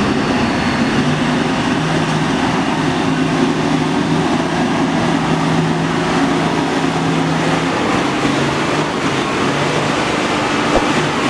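Diesel engine of a loaded Mitsubishi Fuso truck running under load as it crawls through deep mud, a steady drone whose pitch dips slightly about eight seconds in.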